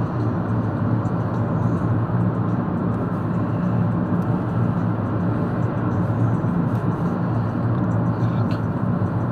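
Steady road and engine noise of a moving car heard from inside the cabin, a constant low drone.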